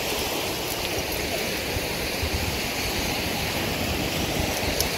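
Small ocean waves washing in at the shoreline, a steady hiss of surf.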